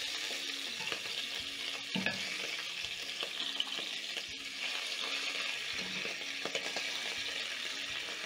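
Beef short ribs sizzling steadily as they sear in hot oil in a heavy-bottomed pot, with a few light clicks of metal tongs as the pieces are turned.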